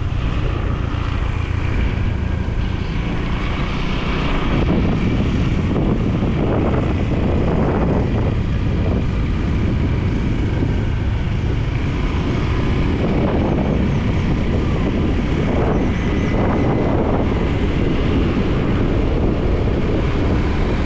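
Wind rumbling on the microphone while riding along in a vehicle, with the vehicle's running noise underneath.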